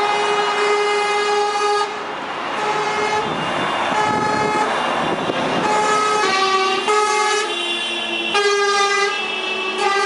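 Horns of big-rig trucks in a passing convoy. There is a long blast at the start, then a run of toots and blasts at several different pitches, some overlapping, with the noise of the trucks' engines and tyres between them.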